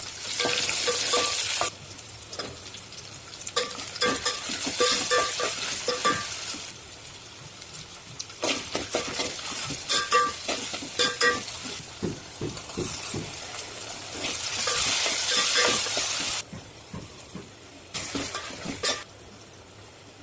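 Food frying and sizzling in a pan, loudest in bursts at the start, about fifteen seconds in and near the end, with a metal spoon stirring and scraping against the metal pot in between, its clinks ringing.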